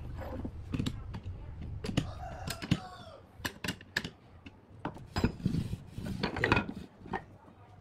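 Steel wrench clinking and clicking on a nut and bolt at the hub of a wooden wheel while the bolt is tightened, with light knocks of the wooden frame and the wrench set down on the table. The sharp clicks come irregularly.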